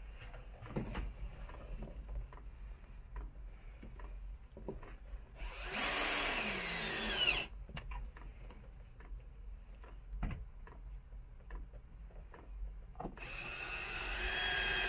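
Ryobi cordless drill run in two bursts of about two seconds each, about a third of the way in and again near the end, its motor whirring and then dropping in pitch as it spins down. Faint handling knocks in between.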